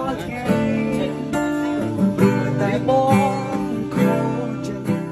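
Background music led by an acoustic guitar, strummed and plucked.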